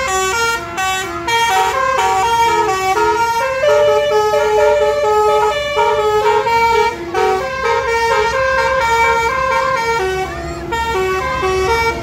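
Tour bus telolet basuri musical horn playing a quick tune, note after note in a stepped melody, over a low steady rumble.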